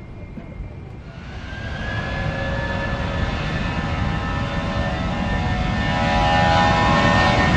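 Airbus A320 jet engines running on the runway, growing steadily louder from about a second in, a high steady whine over a low rumble.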